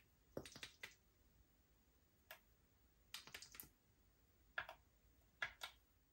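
Slime being pressed and stretched by hand, giving off quick clusters of small crisp clicks and pops, five bursts in all.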